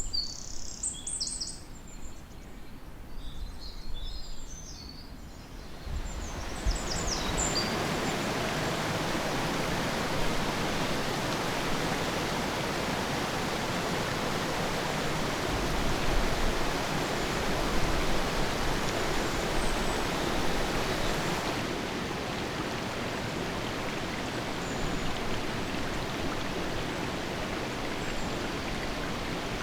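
Small birds chirping for the first few seconds, then from about six seconds in the steady rush of a flowing river takes over and carries on unbroken.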